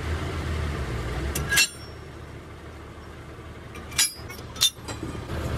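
Three sharp metallic clinks with a brief ring, about one and a half, four and four and a half seconds in. A low rumble runs under them at first and drops away after the first clink.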